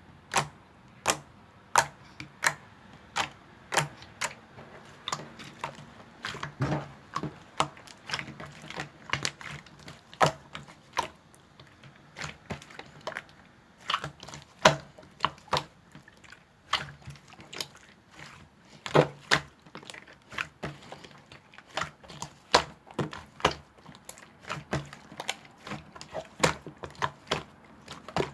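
Two slimes, one of them fluffy, being kneaded and mixed by hand, giving irregular sharp clicking pops as trapped air bursts, about one or two a second.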